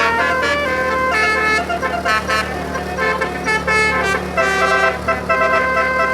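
Indonesian 'telolet' multi-tone bus horn playing a quick melody, its trumpet-like notes changing several times a second, over a steady low hum.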